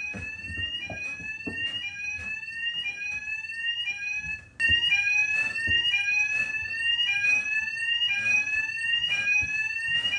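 Fire alarm sounding: a rising, sweeping tone repeated about twice a second. It breaks off briefly about four and a half seconds in, then comes back louder.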